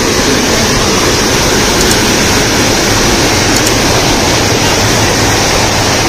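A waterfall's water falling and rushing, loud and steady without a break.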